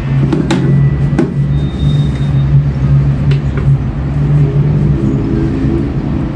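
Steady low rumble of motor traffic, with a heavy engine's hum in it, and a few sharp clicks and taps in the first few seconds.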